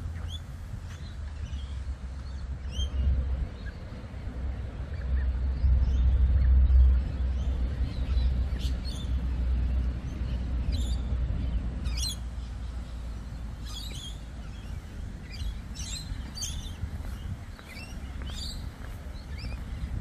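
Birds chirping in short, high calls, a few at first and more often from about halfway through, over a low rumble of wind on the microphone that swells about five to seven seconds in.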